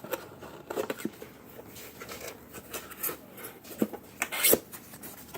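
Handling noise from a plastic UV curing lamp being fitted together: light clicks and rustles, with a sharper plastic knock about four and a half seconds in.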